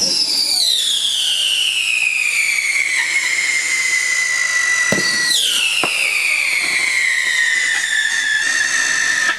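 Whistling fireworks: two long shrill whistles, each falling steadily in pitch over about five seconds. The second begins with a sharp pop about five seconds in.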